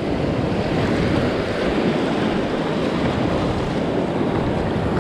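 Shallow surf washing in over a sandy beach, a steady rush of water and foam, with wind rumbling on the microphone.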